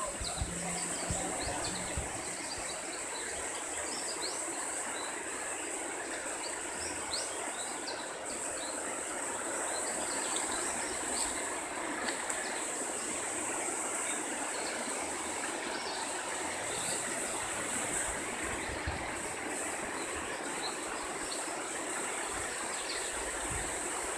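Steady rushing outdoor noise under a gathering thunderstorm, with a constant high insect drone and a few faint bird chirps.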